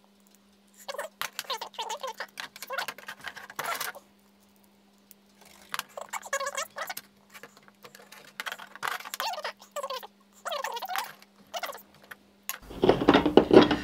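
Lansky sharpening hones and their metal guide rods clicking and rattling against each other and the worktop in short bursts, as the rods are fitted into the hones and the set is laid out side by side.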